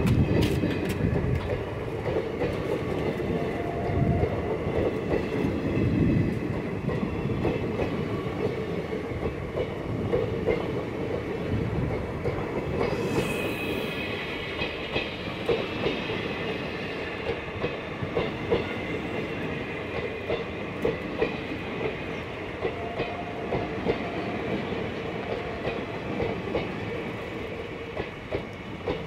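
A long freight train of wagons rolls past close by: a steady rumble of wheels, with the repeated clickety-clack of wheels over rail joints. From about halfway a high metallic wheel squeal sounds over the rumble.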